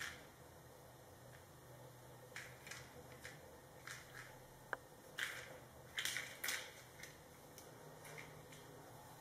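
Faint scuffs and skitters of a kitten's paws and a small toy on a tiled floor as it pounces: a handful of short, irregular brushing sounds, the loudest a little past halfway, with one sharp click just before the middle. A low steady hum runs underneath.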